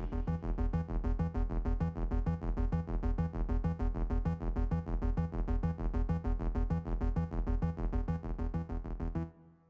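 Electronic background music with a steady, fast beat of about four pulses a second, cutting off shortly before the end.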